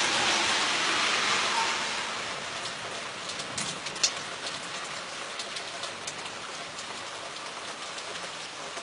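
Rain falling during a thunderstorm, heavier for the first couple of seconds and then easing to a lighter patter with distinct drops ticking. One sharp drop stands out about four seconds in.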